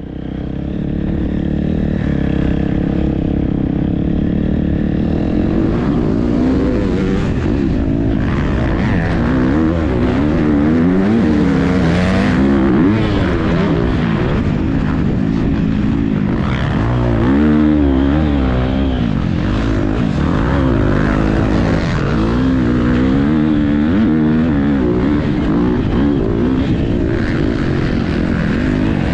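Motocross bike engine heard from onboard, revving up and dropping back again and again as the rider accelerates, shifts and brakes around a dirt track. It is steadier for the first few seconds, then the rising and falling revs come thick and fast.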